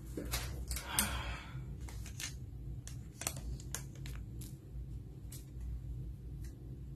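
Light handling sounds: a dozen or so scattered soft clicks and brief rustles as a plastic pregnancy test cassette is held up and shifted in the hand, over a steady low hum of room tone.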